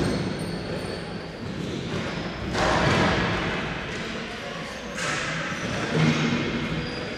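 Ball hockey game play in an echoing arena: indistinct players' shouts with knocks of sticks and the ball on the floor and boards, and two swells of louder noise about two and a half and five seconds in.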